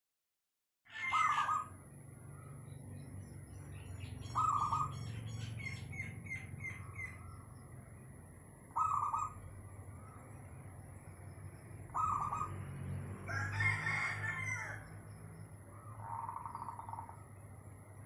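Birds calling and chirping, with a short call repeated every three to four seconds and a quick run of higher chirps, and a rooster crowing about three-quarters of the way through, the loudest sound, over a steady low hum. The sound begins about a second in, after silence.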